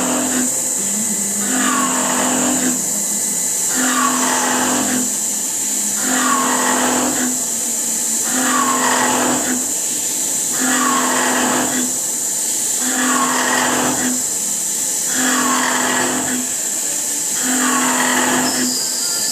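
CNC milling machine cutting a profile in metal, with a steady high whine under a regular cycle about every two seconds: a smooth low hum alternating with a rougher cutting noise as the tool makes repeated passes.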